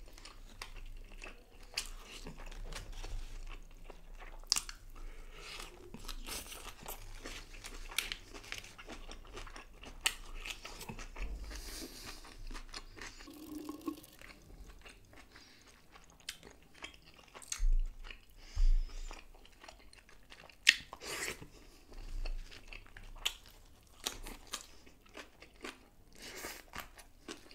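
Close-up eating sounds of pieces of fish being bitten and chewed: crunchy bites and wet chewing and mouth clicks. A few louder bites come a little past the middle.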